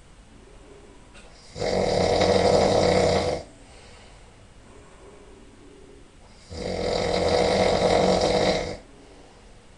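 A man snoring really loud in his sleep: two long snores of about two seconds each, roughly five seconds apart, with much quieter breathing between them.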